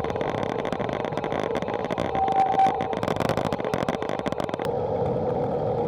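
Bicycle being ridden: steady rolling noise of tyres and wind, with many small clicks and rattles through it.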